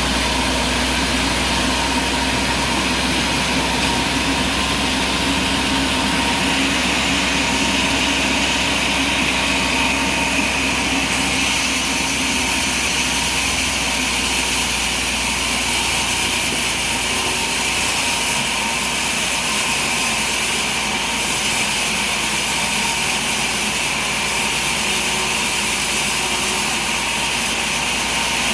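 Sawmill machinery running steadily, a continuous engine-like drone with a hiss. About a third of the way in, the low hum fades while the higher hiss grows stronger.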